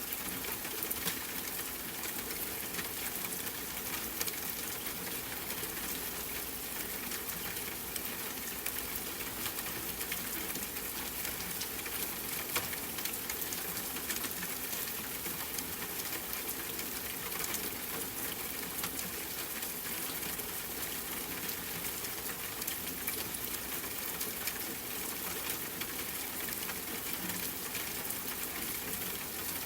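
Steady rain falling, an even hiss of rain with many small drop ticks scattered through it.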